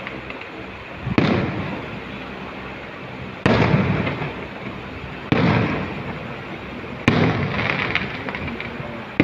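Aerial firework shells bursting: four booms about two seconds apart, each dying away over a second or so, with crackling between them.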